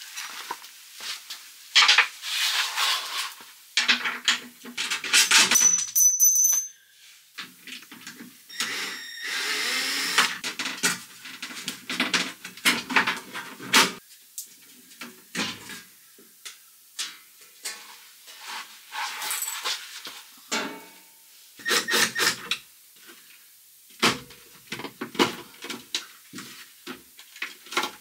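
Hand work on a Mazda Miata door while the door panel and speaker are taken out: irregular plastic clicks, knocks and rubbing, with a short high squeak about six seconds in.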